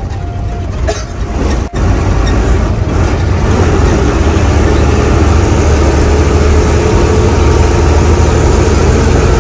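Truck's diesel engine running at speed along the road. There is a brief break a little under two seconds in, after which the engine is louder, with a steady whine that rises slightly.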